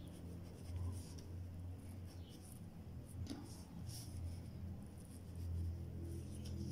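Wooden graphite pencil scratching on paper in short, irregular sketching strokes, over a low steady hum.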